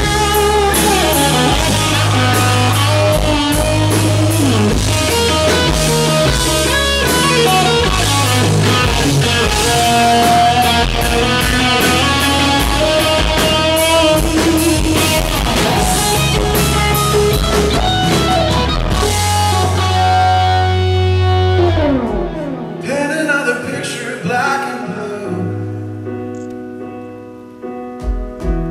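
Live rock band playing, with drums, bass and electric guitar under a male lead vocal. About 22 seconds in the band drops out to a quieter passage of held, fading chord notes, and the full band comes back in near the end.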